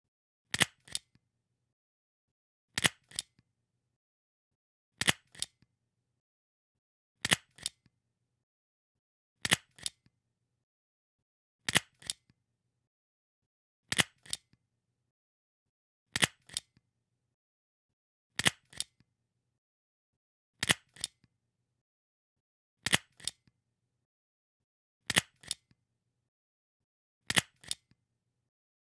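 Stapler pressed down and released over and over, about once every two seconds. Each press gives a sharp metallic click followed a moment later by a second, softer click.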